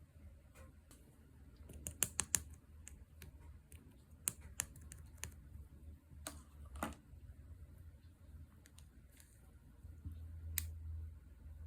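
Slime being poked and pressed by hand, making scattered small sticky clicks and pops, with a quick cluster of clicks about two seconds in.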